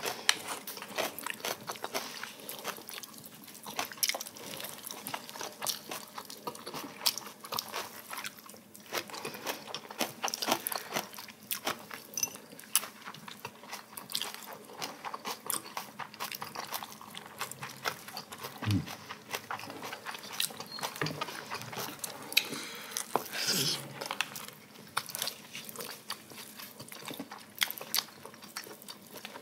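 Two people eating close to the microphone: chewing, biting and crunching, with many small sharp clicks and taps throughout.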